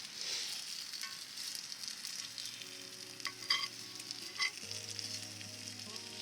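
Steak sizzling in a cast-iron skillet as a steady hiss, with a few sharp taps a little past halfway. Soft background music comes in about two seconds in.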